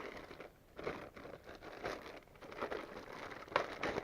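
Plastic anti-static bag around a graphics card crinkling and rustling as it is handled, in irregular bursts of crackle.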